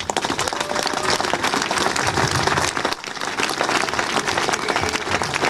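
A large crowd applauding, dense, steady clapping that eases briefly about three seconds in and picks up again.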